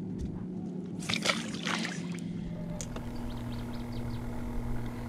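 Water splashing and sloshing about a second in as a crappie is let go into the lake and kicks away, with a low steady hum underneath.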